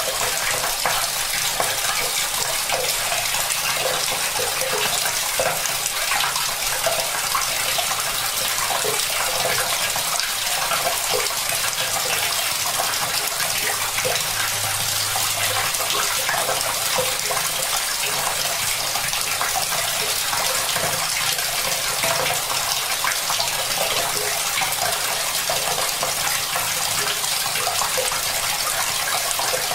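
Tap water pouring steadily into a bucket, a continuous splashing stream.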